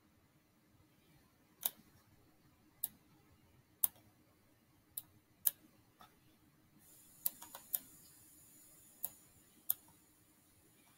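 Computer clicking: about ten short, sharp single clicks at irregular intervals, roughly one a second, with three in quick succession a little past the middle, as on-screen sliders are clicked and set. A faint steady hum lies underneath.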